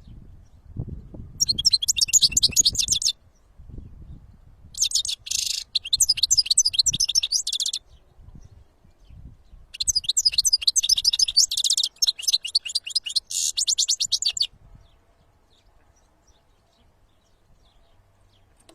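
European goldfinch singing: three bursts of rapid, high-pitched twittering, each a few seconds long, the last and longest stopping about two-thirds of the way through. A low rumble sits under the first half.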